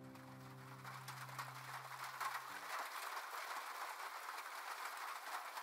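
Rain falling, a dense patter of drops that fades in while a held piano chord dies away; the chord ends about three seconds in.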